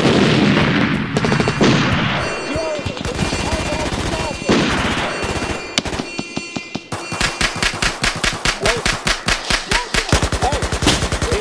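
Rapid automatic gunfire in long bursts. It dips briefly around the middle, then runs on in a fast, even stream of shots.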